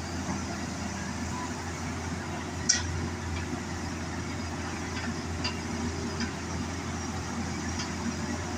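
Hitachi excavator's diesel engine running steadily. A sharp click comes a little under three seconds in, followed by a few fainter clicks.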